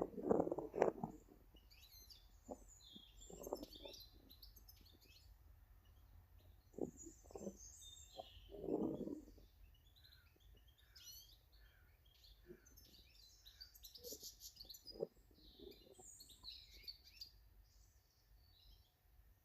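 Small garden birds chirping and twittering throughout, with several short low bursts of noise, the loudest right at the start.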